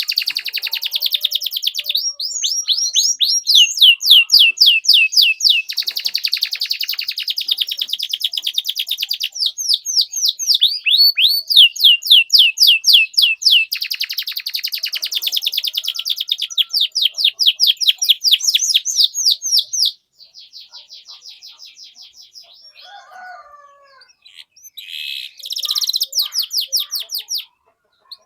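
Domestic canary singing long, fast trills of repeated high chirps ('cuit cuit'), changing to a new trill every few seconds. The song drops much fainter about two-thirds of the way in, with a short burst of different calls near the end.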